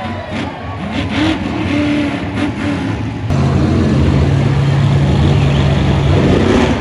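Monster truck engines revving, their pitch rising and falling. About halfway in the sound changes abruptly to one loud, steady high-revving engine note that holds to the end.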